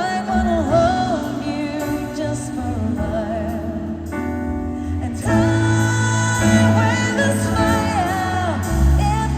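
A woman singing a slow pop ballad live over band accompaniment, the bass and band growing fuller about five seconds in.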